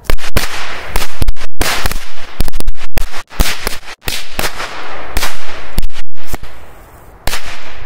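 Five-bang firecrackers going off: a rapid, irregular run of very loud, sharp bangs for about seven seconds, with one last bang near the end.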